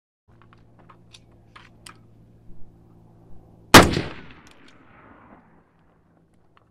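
A single unsuppressed shot from a 5.56 AR-15 pistol with a 10.5-inch barrel, a sharp crack about three and a half seconds in, followed by an echo rolling away for about a second and a half. A few faint clicks come before it.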